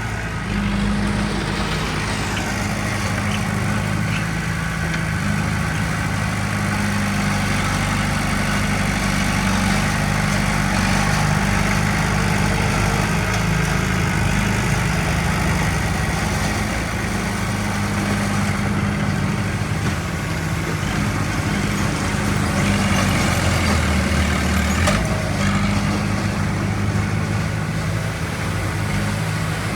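Heavy diesel engine of earthmoving machinery running steadily, its low engine note holding with small shifts in load.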